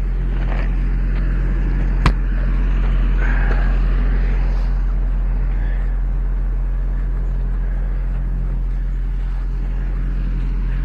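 A vehicle engine idling steadily at an unchanging low pitch. About two seconds in there is a single sharp knock.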